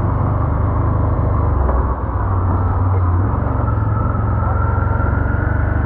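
ATV engine running steadily as the quad is ridden along, a loud low drone. The engine note dips briefly about two seconds in and shifts a little just after three seconds, then a faint whine slowly rises toward the end.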